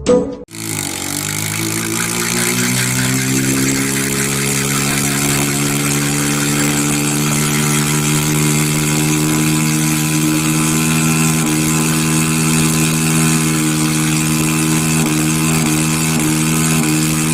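An engine running steadily. It starts about half a second in, rises a little in pitch over the first couple of seconds, then holds an even pitch.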